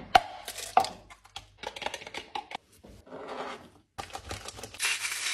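Sharp cracks of eggs being broken into a bowl, then cheese grated on a metal box grater. Near the end, the loudest sound: a steady sizzle as the egg hits the hot, freshly seasoned cast iron skillet.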